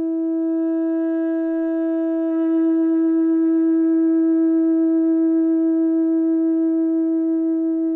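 Soundtrack music: a single note held steady in pitch, with a second, wavering layer joining about two seconds in and making it slightly louder.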